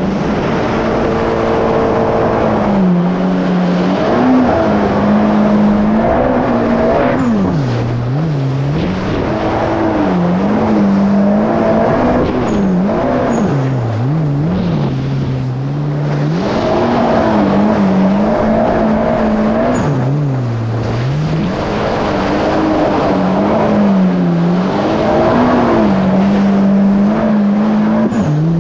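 2019 Yamaha GP1800R SVHO jet ski's supercharged four-cylinder engine running under way, its pitch rising and falling over and over as the throttle is worked, over a constant rush of water and wind.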